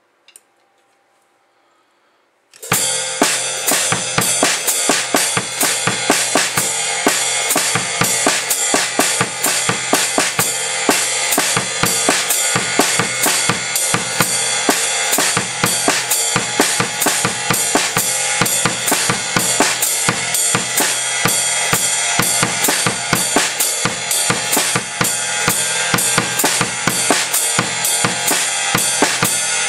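Drum kit starting up about two and a half seconds in and then playing a steady groove: a continuous cymbal pattern with bass drum and snare figures worked through it, as in a written coordination exercise.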